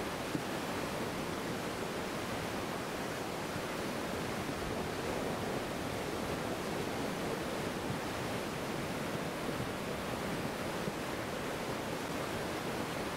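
Flood-swollen, mud-laden mountain river rushing steadily: a dense, even hiss of turbulent water.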